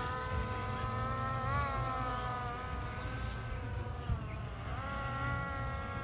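Vehicle driving, with a steady whine of several evenly spaced tones over a low rumble; the whine dips in pitch twice and comes back up as the speed changes.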